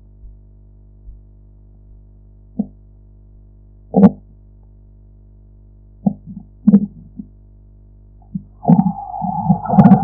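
Korotkoff sounds heard through a stethoscope under a blood pressure cuff: the last faint pulse thumps die out in the first second or so, which marks the diastolic pressure. After that come irregular knocks and rubbing, loudest about four seconds in, over a steady low hum. Near the end a steady tone with rustling starts up.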